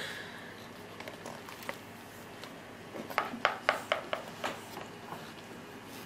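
A spoon clicking and scraping in a plastic bowl while scooping up baby cereal: a quick run of about seven small taps about three seconds in, in an otherwise quiet room.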